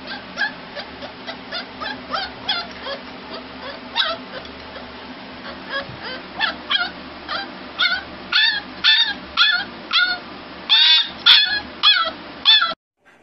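Bull terrier puppy crying with a long run of short, high-pitched whines and yips, which grow louder and come closer together in the second half.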